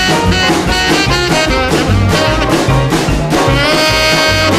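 Upbeat boogie-woogie rhythm-and-blues record with horns, in an instrumental stretch without singing; a horn holds one long note from about three and a half seconds in.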